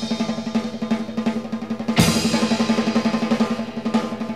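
Background music led by a drum kit: a fast, even drum pattern with rolls over a steady low note, and a cymbal crash about two seconds in.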